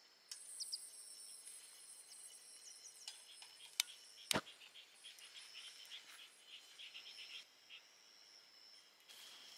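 Insects chirping in a steady high trill with fast pulses. About four seconds in come two sharp clicks, as a long lighter is clicked at the base of a Coleman 286A lantern to light it.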